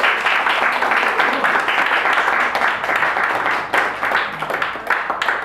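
Audience applauding, many hands clapping together, easing off near the end.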